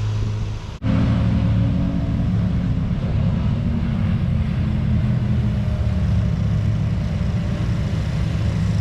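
Lawn mower engine running steadily while mowing grass, with a brief drop-out just before a second in, after which the running resumes.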